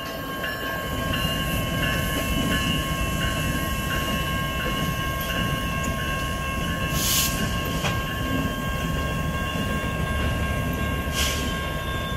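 A group of Norfolk Southern diesel locomotives passing at a grade crossing: a steady engine rumble with wheels on the rails, over a steady ringing tone from the crossing signal. There are two brief hisses, one about seven seconds in and one near the end.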